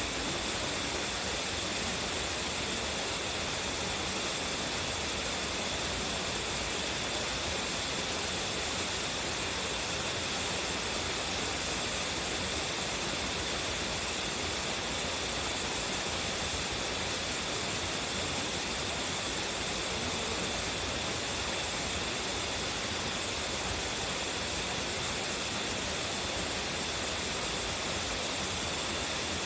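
Strong-flowing waterfall: a steady, unbroken rush of falling water.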